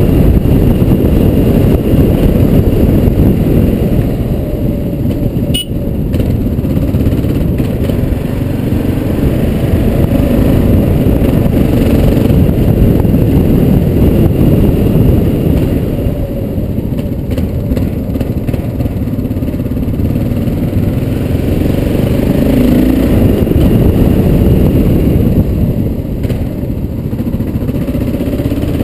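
Kawasaki KLR650's single-cylinder engine running as the motorcycle rides along at a steady pace, heard from a helmet-mounted camera, with a dense low rumble throughout. A brief click comes about six seconds in.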